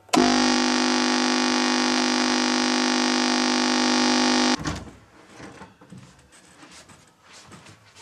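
Clock radio alarm going off: one loud, steady electronic buzz that starts abruptly and cuts off suddenly after about four and a half seconds, as it is switched off. Faint knocks and rustles follow.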